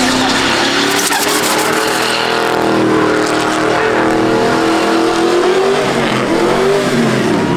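Pickup truck engine held at high revs during a burnout donut, its pitch wavering up and down, with the rear tyres spinning and hissing on the pavement.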